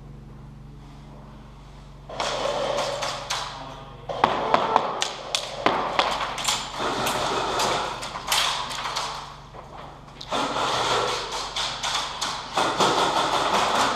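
Airsoft guns firing in bursts, with many sharp cracks and knocks, starting about two seconds in and pausing briefly near ten seconds.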